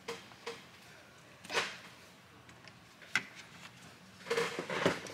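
Rubber coolant hose being pushed back onto the expansion tank by hand: a few short rubbing and scraping sounds, a sharp click about three seconds in, and a cluster of handling noise near the end.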